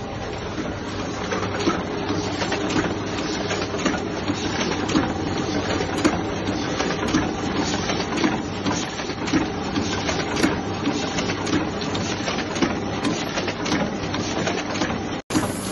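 Heidelberg GTO 52 single-colour offset press running while it feeds and prints envelopes: a steady mechanical clatter with frequent clicks and clacks. The sound drops out for an instant near the end.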